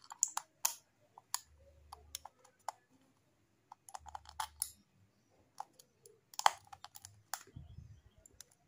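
Thin aluminium drink-can metal clicking and crinkling as one cut can is pressed and worked into another. The sound is a run of sharp, irregular clicks that come in small clusters.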